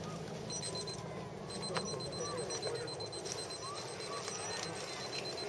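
Faint distant voices over outdoor background noise, with a thin, steady high-pitched electronic tone that starts as short beeps and then holds.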